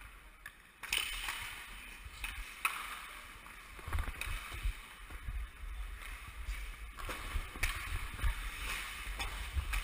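Ice hockey skates scraping and carving on the ice in repeated strides, over a low rumble of wind and movement on a body-worn camera's microphone.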